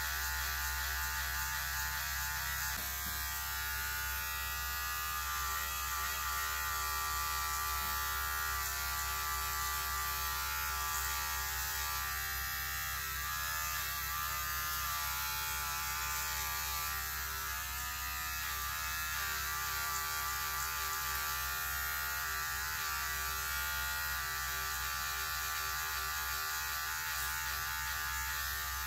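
Electric hair clippers running steadily, shaving the side of a head.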